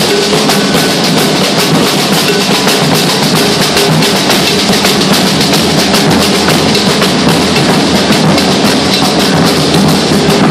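Brazilian drum line playing a loud, dense, continuous rhythm on rope-tensioned bass drums and snare drums.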